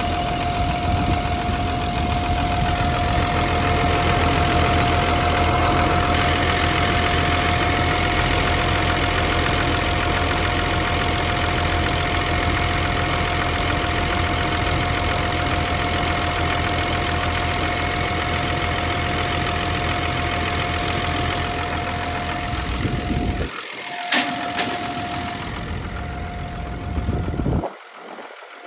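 Caterpillar D6N bulldozer's diesel engine idling steadily, with a constant whine over the low rumble. Near the end the rumble cuts out twice, with a single sharp click between.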